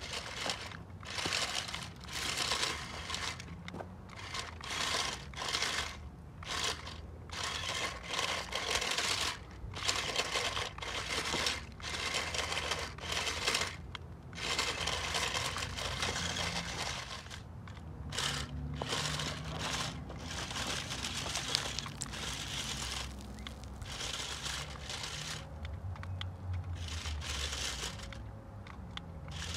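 Stop-start gritty crunching and rustling in bursts of a second or so, as a 1:18 JJRC Q69 six-wheel RC crawler drives in short spurts over loose coal and gravel.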